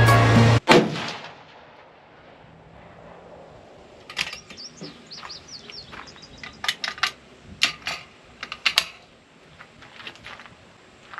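Background music cuts off abruptly just after the start. A series of sharp metallic clicks and clacks follows in short bursts from about four to nine seconds in, as a scoped rifle's action is worked and handled. A bird chirps briefly about five seconds in.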